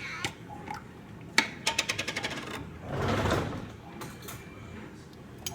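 Kitchen utensil handling while minced garlic goes into the oil: one sharp click, then a quick run of about ten light taps, then a short rushing noise about three seconds in.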